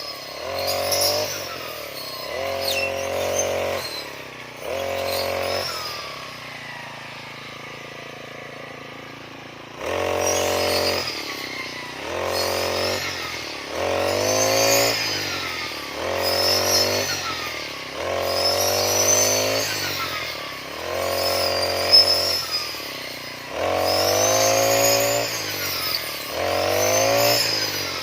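Petrol brush cutter (grass cutter) engine revved in repeated bursts of a second or two, dropping back toward idle between them, as it cuts grass. It sits at idle for a few seconds about a quarter of the way in.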